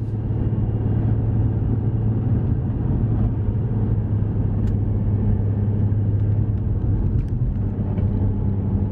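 Car driving along a road, heard from inside the cabin: a steady low drone of engine and tyre noise.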